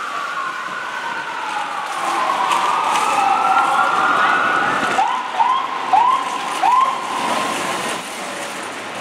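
Emergency vehicle's electronic siren in a slow wail, falling then rising in pitch. Just past halfway it breaks into four quick rising whoops, then holds a tone and fades.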